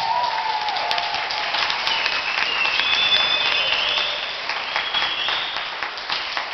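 Audience applauding, with a shout early on and a few high whistles in the middle.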